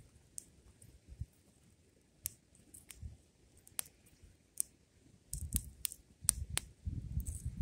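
Fire crackling with sharp, scattered pops, about one a second, and a low rumble during the second half.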